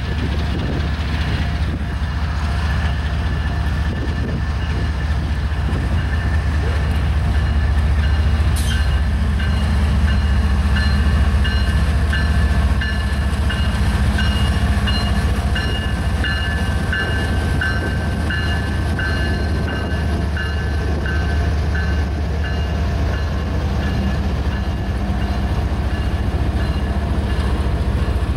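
CSX freight train passing close by: the diesel-electric locomotives' engines give a heavy low rumble, then the freight cars roll past with wheels running on the rails. Thin, steady high tones ring over the rumble, pulsing for several seconds in the middle.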